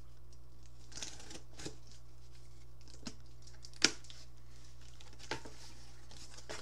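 Cardboard package being opened by hand: scattered rustles and scrapes, with one sharp snap a little under four seconds in.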